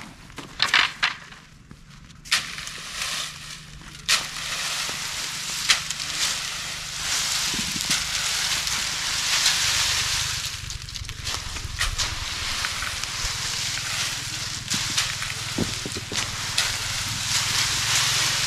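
Dry harvested chickpea plants rustling and crackling as a long wooden pole drags and shoves the heaped stalks on a cart, with a few sharp cracks in the first few seconds.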